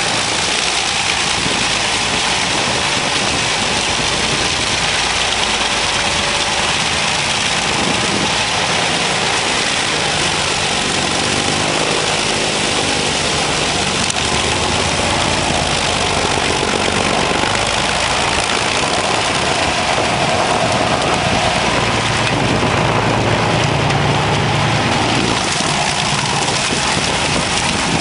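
Seppi forestry mulcher on a Fendt 936 tractor working at full depth, its rotor grinding soil, stumps and brush into the ground. It makes a loud, steady grinding rush over the tractor engine running under heavy load.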